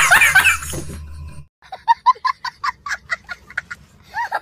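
A man's loud, rapid laughter fading out within the first second. After a short gap comes a quick run of short, high staccato laugh sounds, about five a second, from a small child, whose laughter picks up again near the end.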